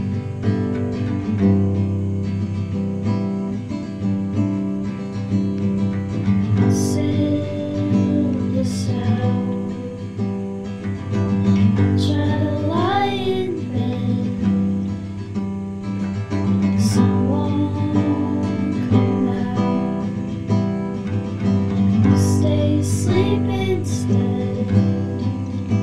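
Background music: a strummed acoustic guitar, with soft wordless singing gliding over it in places.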